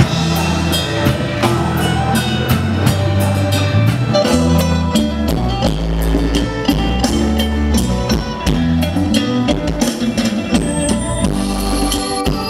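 Live Thai luk thung band music played through a large outdoor PA: a drum kit keeps a busy beat over a bass line.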